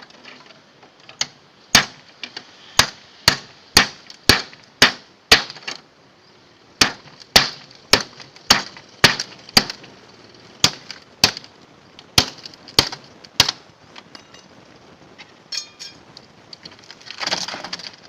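A machete hacking at a refrigerator's body to break it up for scrap: sharp chopping strikes about two a second in two long runs, then a longer scraping clatter near the end.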